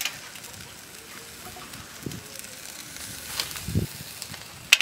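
Metal tongs and a grilled pig leg knocking against a stainless steel tray as the leg is set down: a low thud near the end and, just after, a sharp metallic click, over a steady hiss from the charcoal grill.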